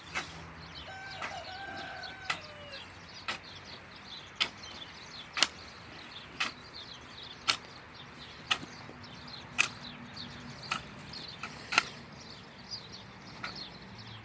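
Regular sharp knocks about once a second from a hand tool striking the soil while digging. Birds chirp in the background.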